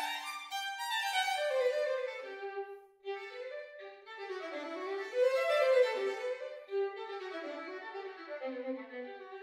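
Unaccompanied solo violin, bowed, playing a moving line of notes; the sound breaks off briefly about three seconds in, then the playing resumes.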